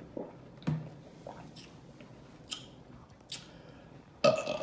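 Close-miked eating of a seafood boil: wet chewing and lip smacking, with short sharp smacks every half second to second and a louder one near the end.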